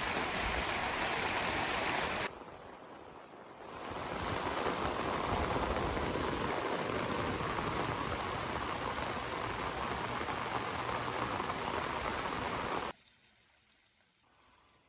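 Heavy rain pouring down, a steady loud hiss. It drops to a quieter patch for about a second and a half near the start and cuts off abruptly near the end.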